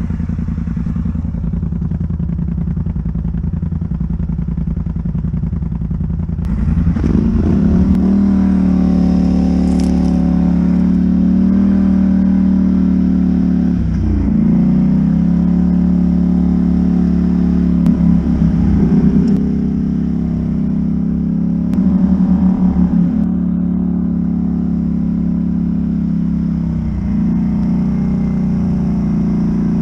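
ATV engine running, steady and low at first, then louder from about six seconds in, its revs dropping and picking back up several times.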